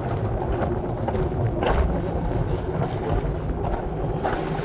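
Mountain coaster sled running fast down its steel rail track: a steady low rumble of the wheels on the rails, with one sharp knock about a second and a half in.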